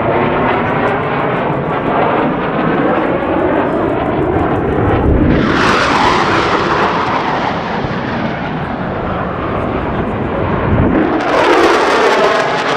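Boeing F/A-18 Super Hornet fighter jets roaring overhead in a loud, continuous jet noise. There are two close passes, about five seconds in and again near the end, each a sudden surge followed by a falling sweep in pitch.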